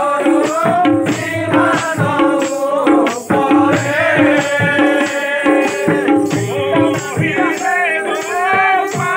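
Devotional kirtan: a group singing a chant over a two-headed barrel drum beaten in a steady rhythm of about two strokes a second, with bright metallic clashes like small hand cymbals on the beats.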